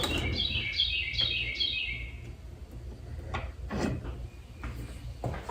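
A small bird chirping a quick run of short falling notes for about the first two seconds, over a steady low hum. A couple of light knocks follow a little past the middle.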